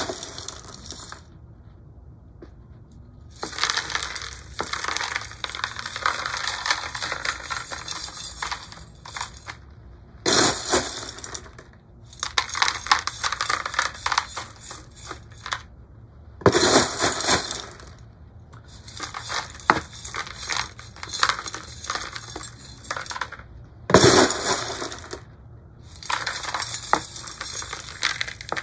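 Pumice granules poured into a plastic pot as a drainage layer, in several pours with short pauses between them.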